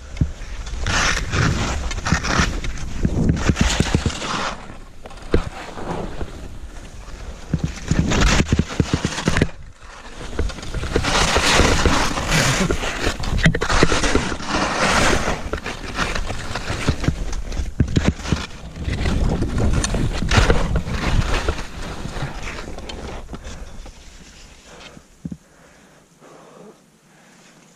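Skis scraping and hissing over snow during a steep descent, mixed with wind rumble on a helmet-mounted GoPro's microphone. The noise surges and ebbs every second or two with the turns, and dies away near the end.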